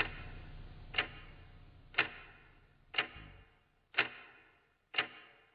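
Slow ticking sound effect: a sharp, clock-like tick once a second, six ticks in all, each dying away quickly.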